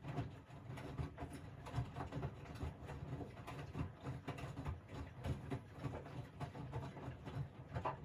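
Miele VivaStar W 400 washing machine drum turning in the wash phase. Laundry and water tumble with irregular thuds over the motor's low hum. The drum stops right at the end, pausing between turns.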